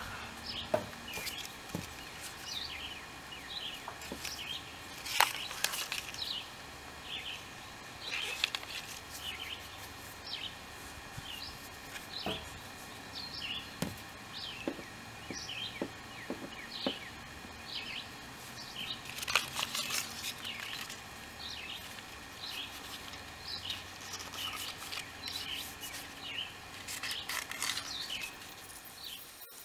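Small birds chirping over and over, with scattered rubbing and knocking noises from hands and a metal hand roller pressing a rubber keel guard strip onto a fiberglass hull. The loudest of these handling noises come about five seconds in and again around twenty seconds in.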